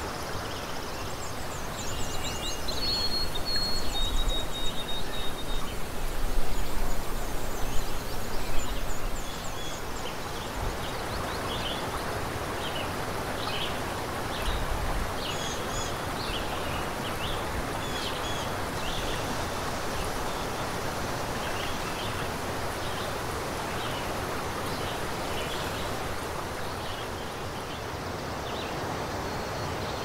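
Outdoor woodland ambience: a steady rushing hiss like running water, with small birds chirping and whistling throughout. Louder irregular low knocks and rustles come through during the first third.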